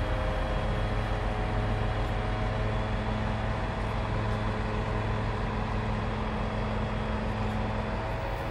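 Fire truck's diesel engine running steadily under load, driving the hydraulics of its 22-metre aerial platform as the boom moves, with a steady mechanical hum.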